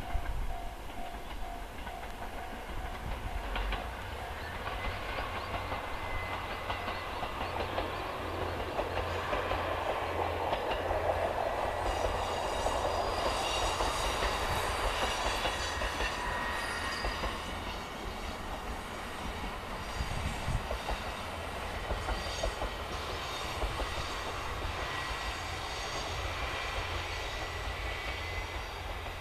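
A diesel railcar running past at a distance, its engine and wheels on the rails growing to loudest about halfway through, then slowly fading as it moves away.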